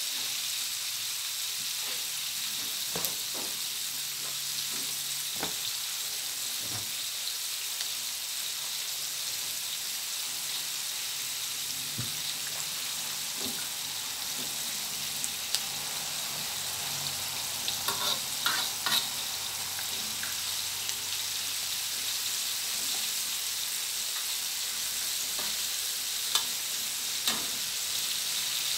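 Chicken wings deep-frying in hot oil in a wok: a steady sizzle with scattered sharp clicks and a short cluster of them a little past halfway.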